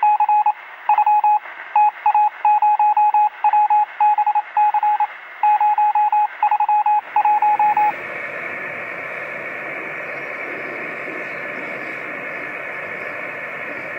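Morse code: a single steady tone keyed in short and long marks for about the first eight seconds, then the steady hiss of an Icom IC-706 HF receiver tuned to the 20-metre band with no signal on frequency.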